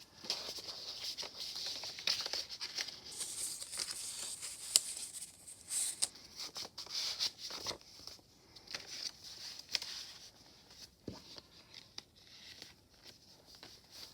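Paper rustling and crinkling as the journal's pages and tags are handled and turned, with small taps and clicks; the handling is busier in the first half and softer after about eight seconds.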